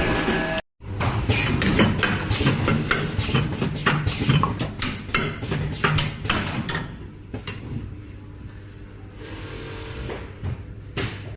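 Machinery running with a low hum and many irregular clicks and knocks, quieter for the last few seconds.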